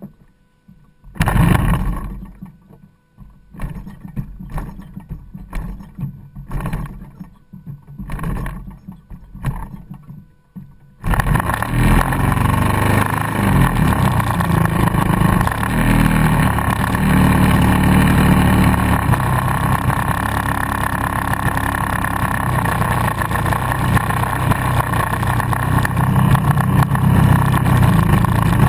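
Engine of a radio-controlled scale Piper Cub tow plane: a few short, irregular noises, then about eleven seconds in the engine starts and runs on steadily and loudly.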